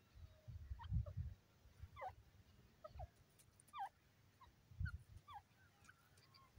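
Grey francolin giving soft, faint chirping calls: short notes that drop in pitch, several in quick succession. Low thumps, the loudest sounds, come about a second in and again near five seconds.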